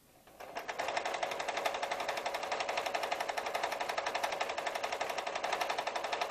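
Domestic sewing machine stitching at a steady, fast rate, starting about half a second in.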